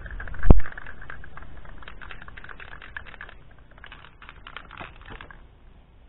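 Aerosol spray can being shaken, its mixing ball rattling in quick irregular clicks that stop a little after five seconds in. A single heavy low thump about half a second in is the loudest sound.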